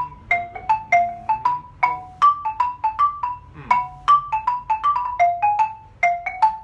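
Xylophone played with two mallets: a quick phrase of single struck notes, a practice break, at about four strokes a second, each note ringing briefly.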